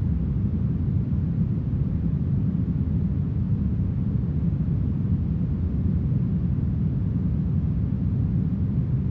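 Smoothed brown noise: a steady, deep, even hiss with most of its weight in the bass and little treble, unchanging throughout.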